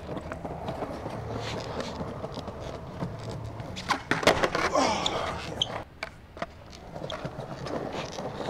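Skateboard wheels rolling over stone paving, then a sharp pop and clatter of the board about four seconds in as the skater throws a 360 flip and the board comes back down. The rolling drops away briefly and picks up again near the end.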